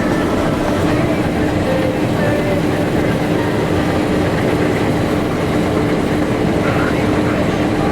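Tractor and bean-harvesting machinery running steadily, with an even mechanical noise and a constant hum.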